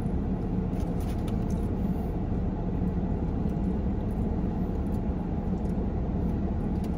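Steady low rumble and hum of a car idling, heard from inside its closed cabin. A few faint clicks come about a second in.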